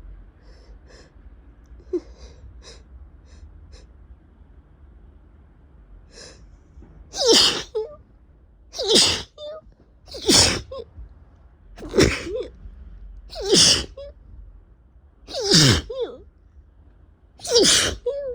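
A person with a head cold in a sneezing fit: seven loud sneezes in quick succession, each about one and a half to two seconds after the last, starting about seven seconds in. Each sneeze has a voiced cry that falls in pitch. Before the sneezes there are only a few faint short sounds.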